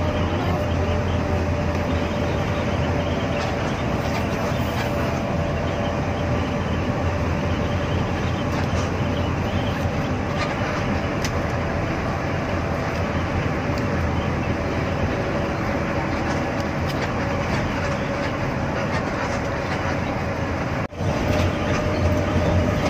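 Steady cabin drone of an intercity bus on the move: engine and tyre rumble, with a steady tone running through it. It cuts out for an instant near the end.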